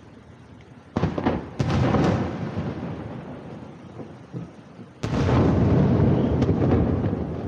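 Aerial firework shells bursting. A cluster of sharp booms about a second in fades into a long rolling rumble, then a heavier, longer volley of bursts starts about five seconds in.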